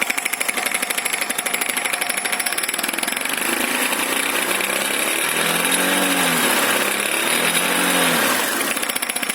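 Honda Forza MF-08 scooter engine running with the drive belt removed, with a fast, rattling knock from the electronically controlled front variator pulley at idle. About three seconds in the engine is revved up and back down, the knock merging into the engine note, and it comes back as the engine drops to idle: the knock comes mainly at idle, a fault the mechanic traces to the key in the variator.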